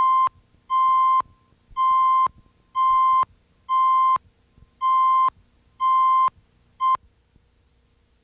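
Electronic countdown beeps: one steady-pitched beep a second, each about half a second long, eight in all, the last one cut short.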